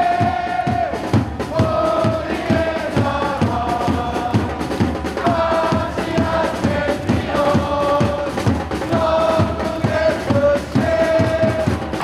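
Football supporters singing a chant in unison, long held notes from a mass of voices over a steady, even drum beat.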